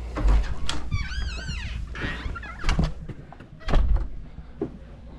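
A door being handled: several knocks and thuds, with a high wavering squeak about a second in.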